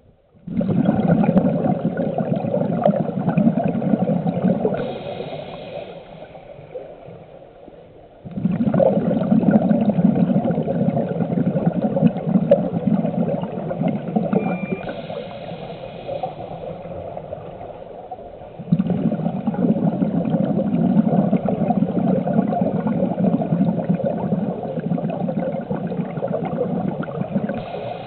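Underwater bubbling and gurgling picked up by a submerged camera. It comes in three long surges, each starting suddenly and fading away over several seconds.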